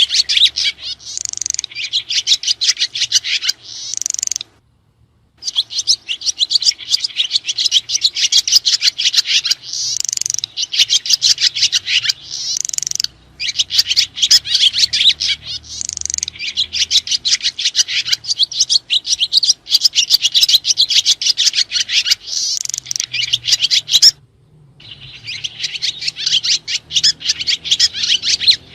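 Sriti swiftlets twittering: dense runs of rapid, high chirps that break off for brief silences about four, thirteen and twenty-four seconds in.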